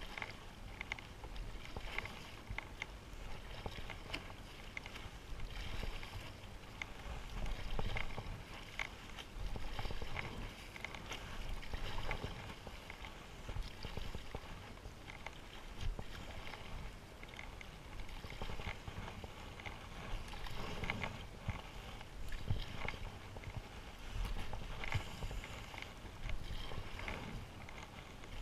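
Stand-up paddle blade dipping and pulling through lake water, a splash and gurgle about every two seconds, over a low steady rumble.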